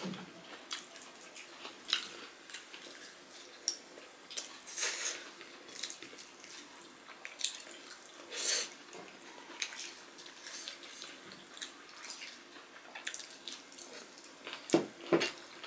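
Close-up eating sounds: wet chewing and lip smacks as two people eat rice and curry with their hands, with fingers squelching the rice on the plates. Irregular short clicks and smacks, the loudest about five seconds in and again a few seconds later.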